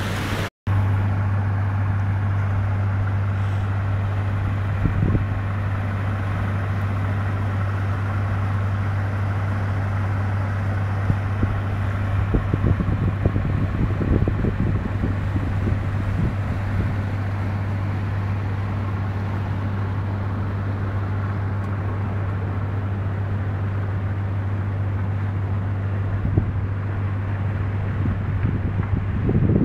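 Steady low drone of a ship's engine under way, with a hiss of wind and water over it. The sound cuts out for a moment about half a second in.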